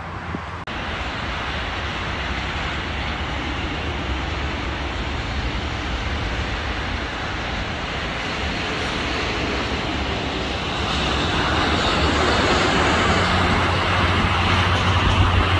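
Jet engines of a Boeing 787 on final approach with its landing gear down: a steady rush with a low hum that grows louder about two-thirds of the way through as the airliner comes close. Steady road-traffic noise runs underneath.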